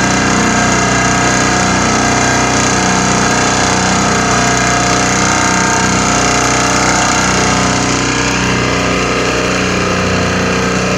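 Vibratory pile driver running on a rolled-steel pile as it sinks it into the ground: a very loud, steady mechanical drone with no separate hammer blows.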